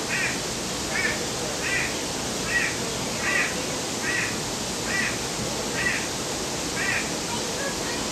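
An animal calling over and over, a short call about every 0.8 s, about nine times, stopping about seven seconds in, over a steady rush of water.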